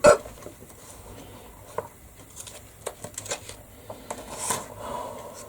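A sharp, short vocal 'hic' acted out as a hiccup right at the start, followed by quieter scattered clicks and light rustling.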